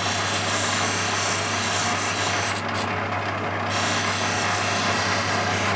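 Opal pressed against a spinning wet 1200-grit soft flexi diamond wheel: the lapidary machine's steady motor hum under a hissing rub of stone on wheel. The high hiss drops away for about a second midway, then returns.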